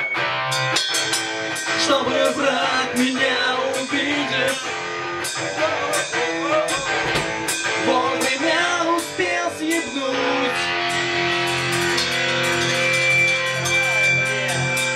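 Guitar-driven rock music from a band, with a steady beat. The arrangement changes about ten seconds in.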